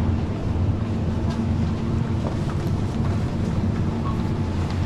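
Steady low hum with an even background haze and a few faint clicks.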